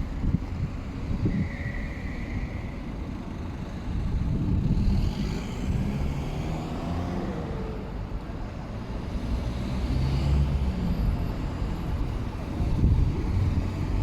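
Road traffic: vehicles driving past with a steady low rumble that swells twice, about four seconds in and again near the end.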